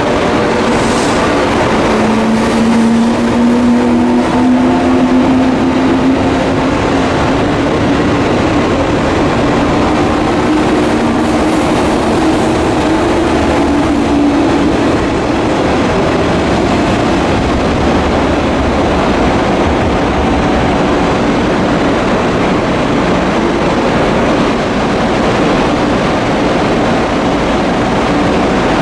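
JR Kyushu electric multiple-unit trains pulling out along the platform: a loud, steady rumble of wheels on rail, with a motor whine that rises slowly in pitch as a train gathers speed.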